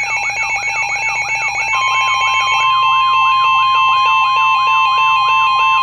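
Electronic weather-alert tones: a warbling alarm sweeping about four times a second over stepped electronic beeps, joined about two seconds in by a loud steady single tone near 1 kHz. The steady tone is the NOAA Weather Radio 1050 Hz warning alarm tone, which heralds a warning broadcast.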